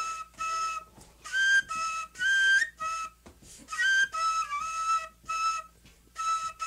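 Solo cane fife played in short phrases of repeated notes, mostly held on one pitch with brief steps up to a higher note, each phrase broken by a short gap.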